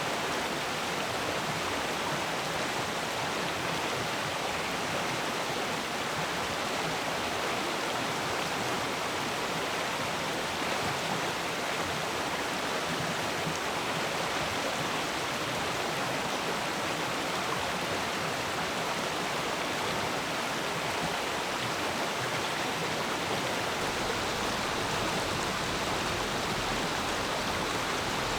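A shallow forest stream flowing steadily, a continuous even rush of water with no breaks or changes.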